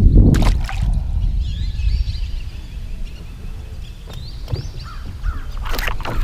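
Birds calling outdoors, with several short wavering calls, over a steady low rumble. A sharp knock comes just after the start.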